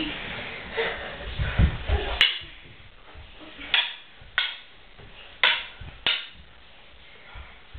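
A stick swung about in a room: thuds and knocks in the first two seconds, a sharp crack a little after two seconds, then four short swishes about half a second to a second apart.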